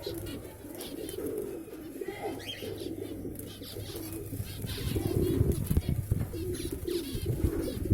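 Pigeons cooing continuously, with short higher chirps mixed in. From about five seconds in, low thumping rumbles come in and become the loudest sound.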